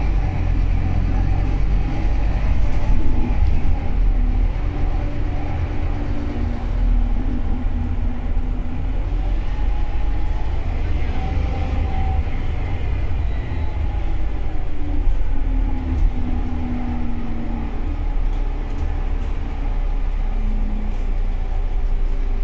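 Route bus on the move, heard from on board: a steady low rumble of engine and road noise, with the engine note shifting in pitch now and then.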